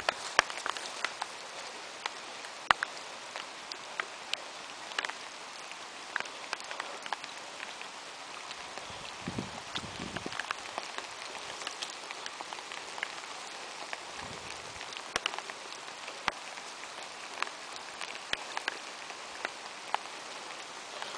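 Light rain falling on puddles and wet grass: a steady patter with many sharp individual drops. Sneakers step through the shallow puddles, with a few dull low thuds near the middle.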